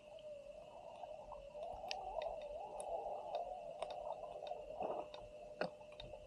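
Faint underwater sound picked up by a camera under a boat's hull: a steady hum, with a wavering tone swelling through the middle that fades about five seconds in, and scattered sharp clicks and pops.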